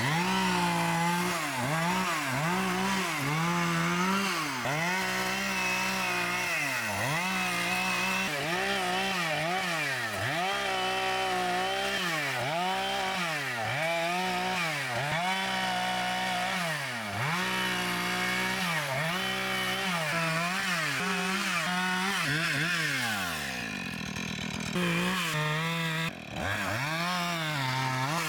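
Chainsaw limbing and bucking a felled tree, repeatedly revving up to full throttle through each cut and dropping back to idle about every second or two.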